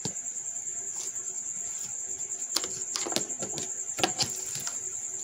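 Small clicks and rustles of stripped cable wires being bent and handled by hand, with a cluster of sharp ticks in the second half, over a steady high-pitched cricket trill.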